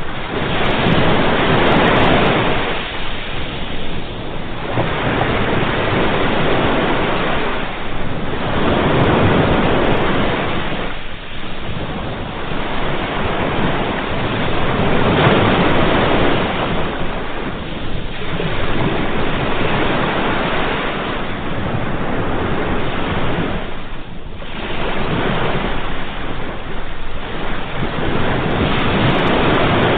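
Ocean waves breaking and washing on a shore, the surf swelling and falling back every few seconds.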